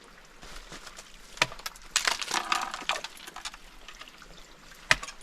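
Ice cracking and clinking: a few sharp cracks with a stretch of crisp crackling in the middle.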